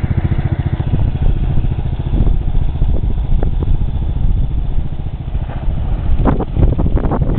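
Modified riding lawn mower's engine running hard under load as it tows a rider through a pond: a loud, rapid low pulsing. Near the end there are a couple of brief rushes of noise.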